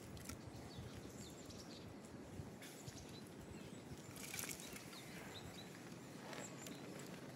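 Quiet outdoor background with faint, scattered high chirps from small birds and a few small clicks and scratches. A brief louder rustle about four seconds in.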